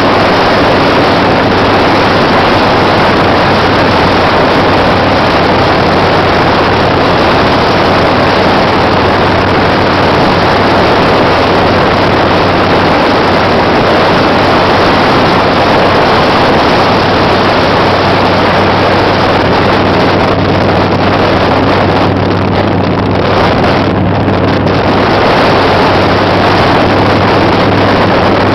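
Harley-Davidson Shovelhead V-twin engine running at a steady cruising speed, heard from the saddle under heavy wind noise on the microphone.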